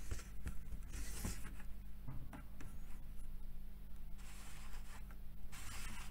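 Plastic drink bottles being handled and turned on a shelf: scraping, rustling rubs in several bursts with a few light clicks, over a steady low hum.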